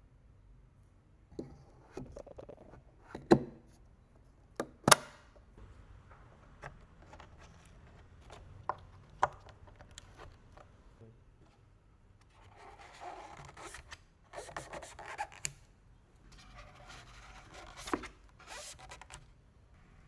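Packaging being handled: a few sharp clicks and knocks, then several bursts of rustling and scraping.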